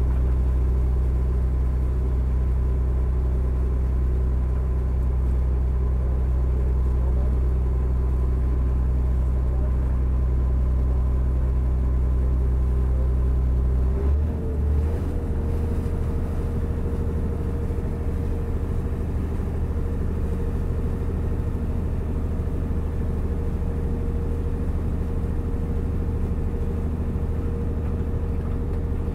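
A sailing clipper's inboard engine runs steadily under way with its sails furled, giving a low, even hum. About halfway through its note changes and it goes slightly quieter, as the engine speed is altered.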